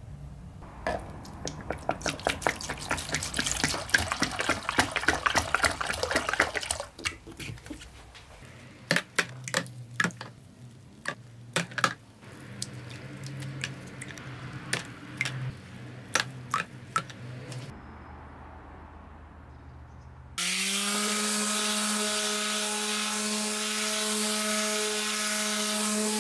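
A run of quick clicks and crackling that thins to scattered clicks, then about twenty seconds in an electric Black+Decker sheet sander switches on and runs with a steady hum on a wooden panel.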